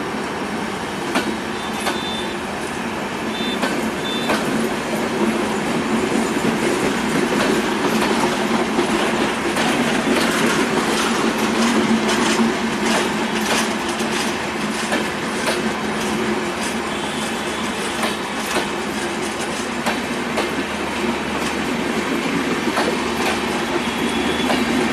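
Sundarban Express passenger coaches (INKA-built) rolling past slowly as the train departs. Their wheels make a steady rumble and click over the rail joints, the clicks coming thickest midway through.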